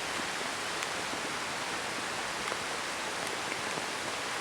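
Steady rain falling, an even hiss, with a couple of faint ticks.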